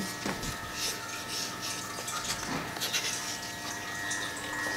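Windshield washer system of a BMW E36 running, with fluid leaking and spraying from washer lines under the hood: a steady whine with a splashy hiss over it. The leak comes from washer lines that are not connected. A few light knocks break in.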